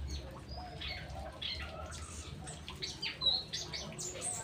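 Songbirds chirping: a busy run of short high calls and quick sweeping notes, over a steady low hum.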